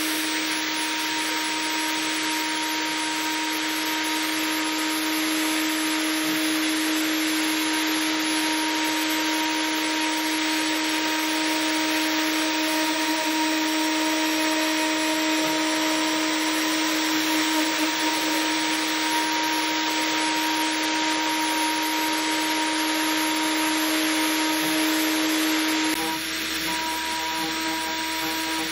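A 6040 CNC router spindle runs at a steady high speed, humming with a held tone, while its fine bit cuts into wood with a continuous rasping hiss. Near the end the sound dips slightly and changes a little.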